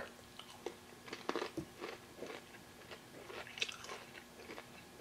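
A person chewing a crispy, breadcrumb-coated mac and cheese shrimp bite: faint, irregular crunches, with a few louder ones about a second and a half in and again near four seconds.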